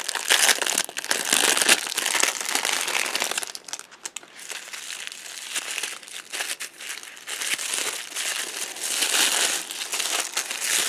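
Plastic packaging wrap crinkling as it is pulled open and unwrapped by hand, in uneven bouts with a short lull about four seconds in.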